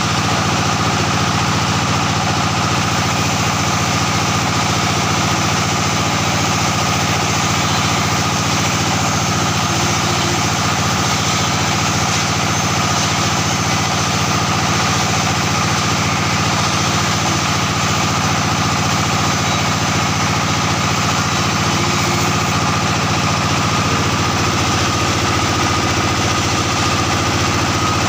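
Single-cylinder diesel engine of a plastering machine idling steadily.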